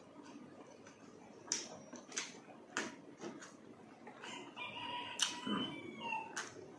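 Close-miked eating sounds of fish being eaten by hand: wet mouth smacks and chewing clicks at irregular intervals, the loudest just past the middle. About four seconds in, a drawn-out pitched animal call sounds in the background for about two seconds.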